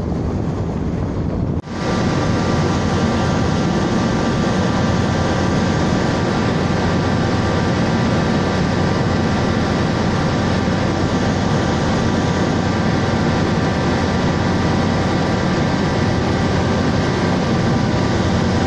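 Steady wind noise on the microphone over a continuous engine drone. After a brief break about a second and a half in, a faint steady whine joins it.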